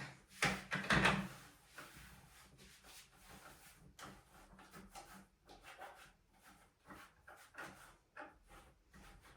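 A vacuum cleaner stops running about a second in, with two sharp knocks as it shuts off. Then come scattered soft knocks and clicks of objects being handled and put away, like drawers or doors.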